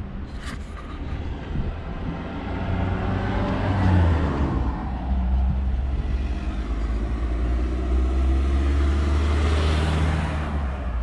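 Car engine and road noise heard from inside the moving car: a steady low rumble that swells to a peak about four seconds in, then runs on evenly.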